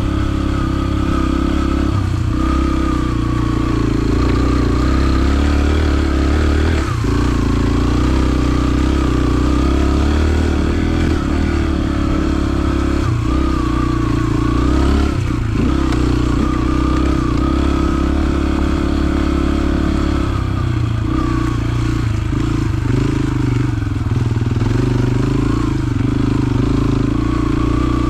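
Yamaha TT-R125 dirt bike's air-cooled single-cylinder four-stroke engine running under way. The note dips and rises a few times as the throttle is rolled off and back on.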